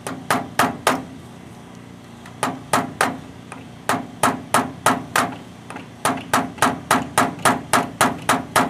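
Hammer driving a long nail into a wooden strip, sharp blows at about three a second in short runs with brief pauses between them, the last run the longest.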